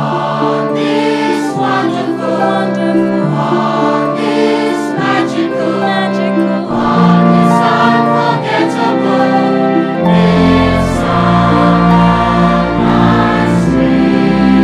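Music for a stage song-and-dance number, with a group of voices singing over instruments. A deep bass line comes in about ten seconds in and the music gets a little louder.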